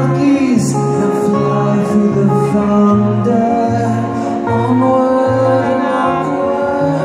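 Live indie-rock band playing through a venue PA, heard from the audience: a bass line of short repeated notes, about two a second, under sustained chords.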